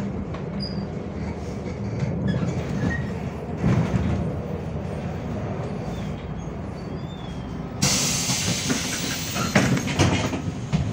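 Inside a MAZ-105 articulated diesel city bus: a steady low rumble of engine and road noise, then about eight seconds in a sudden loud hiss of compressed air from the bus's pneumatic system, with clunks and rattles after it.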